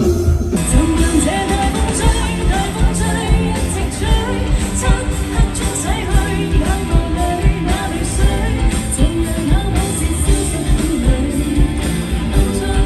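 Pop-rock song with a singer's vocal line over a full band and a steady drum beat.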